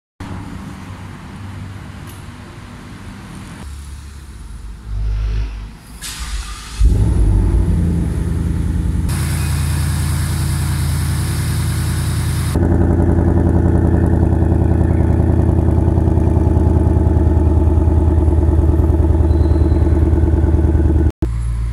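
Ford Mustang GT's 5.0-litre V8 engine and exhaust: running low at first, suddenly louder about a third of the way in, with a rougher, noisier stretch, then a steady even running note for the second half.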